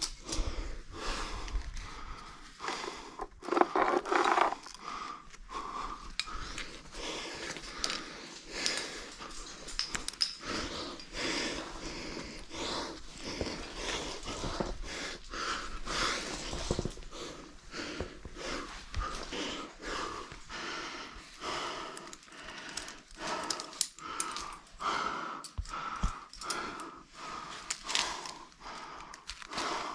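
A climber breathing hard and panting with exertion, in short irregular puffs, while working up a narrow rock chimney.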